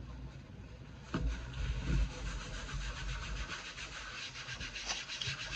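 Hands being wiped with a paper napkin: dry rubbing and crumpling of paper, turning into quick repeated strokes in the second half, with a couple of soft bumps about a second in and again a second later.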